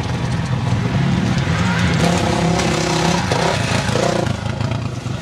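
Off-road dirt bike engines running and revving, the pitch rising and falling with the throttle.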